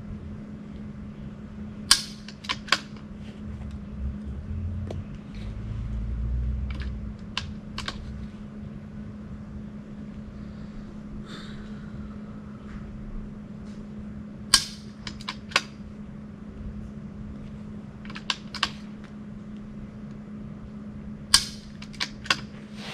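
Sharp shots from a .22 rimfire rifle, the three loudest about 2, 14.5 and 21.5 seconds in, each followed by a few lighter clicks, over a steady low hum.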